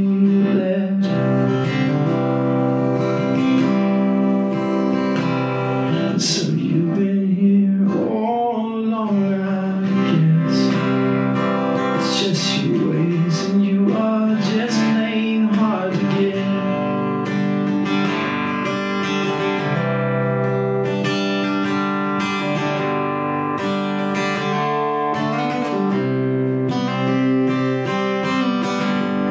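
Acoustic guitar strummed and picked in a live song, with a man singing over it for part of the time.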